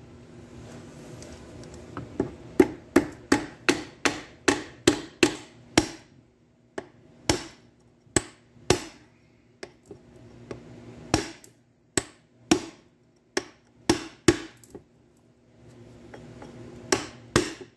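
Hammer tapping a pin punch to drive in the small pin on a Tremec TR3550's fifth-gear shift fork: sharp metal taps, about a dozen in quick succession, then slower, spaced blows.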